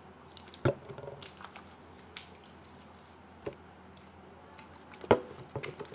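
Hand sanitizer squelching as it is squeezed out and rubbed on skin: scattered short wet squishes, the loudest about a second in and about five seconds in, over a faint low hum.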